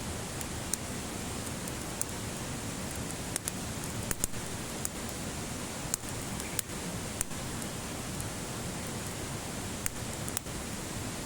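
Wood fire burning in a small fire stand: a steady hiss with irregular sharp crackles and pops.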